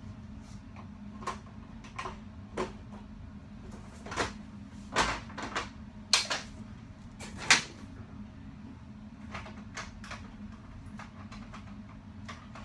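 Scattered clicks and knocks of objects being handled, with a cluster of louder knocks in the middle, over a steady low hum.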